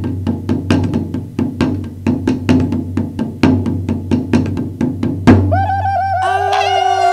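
Background music with a quick, even wood-block-like clicking beat. About five seconds in, a loud hit breaks it off and held, wavering high tones take over.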